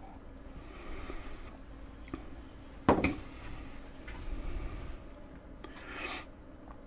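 A ceramic coffee mug is sipped from and then set down on a hard surface, a single sharp knock about three seconds in, in an otherwise quiet room.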